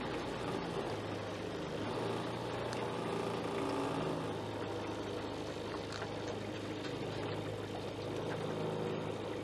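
Small outboard motor on a fishing boat running steadily while under way.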